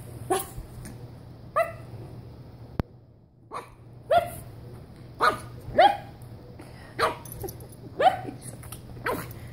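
A pug puppy giving short, falling barks, about nine of them roughly a second apart: a young puppy finding its bark.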